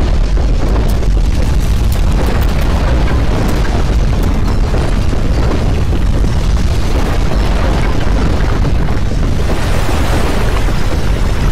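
Continuous deep earthquake rumble with a noisy crackle over it, steady in loudness: the sound of ground shaking.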